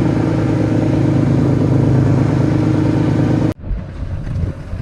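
Boat engine running at a steady idle, then cut off abruptly about three and a half seconds in, leaving a quieter, uneven low rumble.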